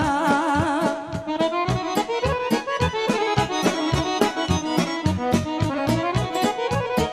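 Instrumental break in a Serbian folk song. A held, wavering note ends about a second in, then the accordion plays quick runs over a steady beat.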